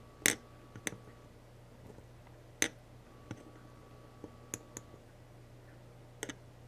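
A handful of sharp, light clicks at irregular intervals, about seven in all, over a faint steady hum, from soldering a joint on a small circuit board: the iron tip and solder wire working the pad.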